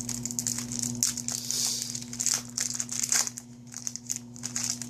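Foil trading-card booster pack wrapper crinkling and being torn open by hand, a dense run of crackles over a faint steady hum.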